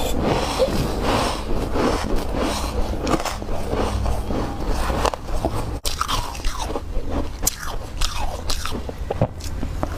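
Snow being bitten and chewed close to the microphone: a dense run of crisp crunches, broken once by a momentary dropout just before six seconds in.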